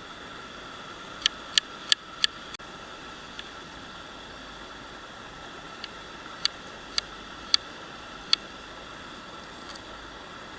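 Steady rush of river water, broken by sharp clicks or taps: four in quick succession a little over a second in, then five more spaced out in the second half.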